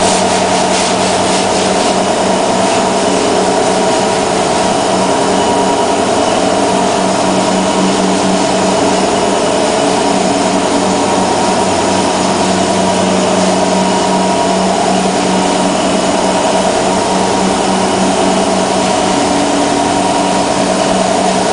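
A power tool running steadily at a constant level, its pitch wavering slightly as it works.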